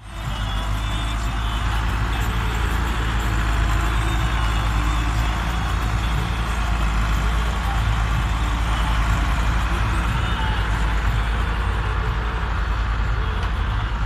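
Massey Ferguson 375 tractor's diesel engine running steadily as it pulls an implement through loose soil.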